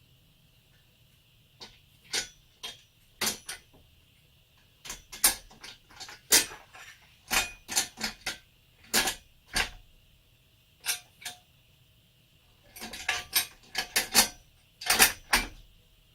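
Irregular metal clinks and knocks from a chainsaw milling attachment being handled and fitted, scattered at first, then in two busy runs of clatter.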